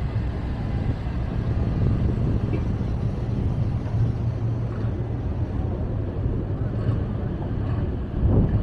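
Car engines running at low speed, a steady low rumble, with a louder surge near the end.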